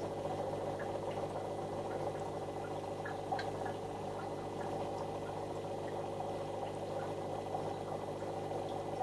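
Aquarium aeration running: a steady electric hum with water bubbling and scattered small pops.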